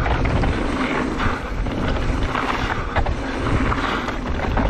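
Wind buffeting the camera microphone on a downhill mountain bike run, with the rumble of tyres on the dirt trail and scattered knocks and rattles from the bike.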